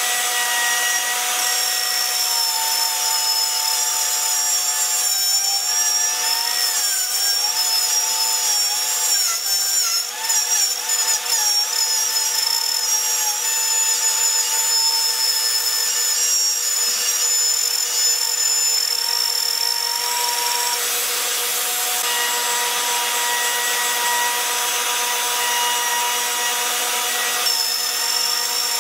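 Compact handheld router running continuously as it cuts a shallow channel into a wooden board. Its high whine wavers in pitch several seconds in as the bit is loaded in the cut.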